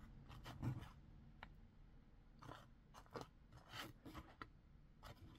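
Faint, scattered clicks of small beads knocking together as a hand picks through a loose pile of them.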